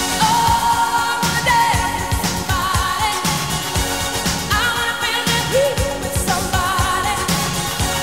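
Arena goal song: an upbeat pop song with a singing voice over a steady drum beat.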